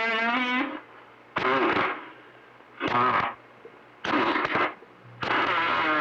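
CB radio receiver on channel 28 bringing in skip: five short bursts of garbled, distant-sounding voices, each cutting off abruptly as the squelch closes, with a low steady hum between them.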